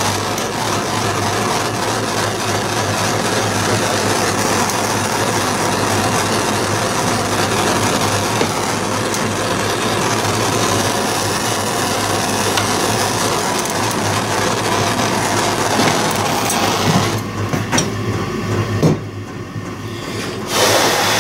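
Heat gun blowing steadily, shrinking heat-shrink tubing over a soldered wire joint; it shuts off about 17 seconds in.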